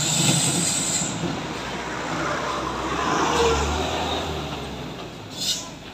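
Mitsubishi Fuso 6x4 heavy truck's diesel engine labouring as the loaded truck crawls up a steep climb, running out of power. A high hiss dies away in the first second.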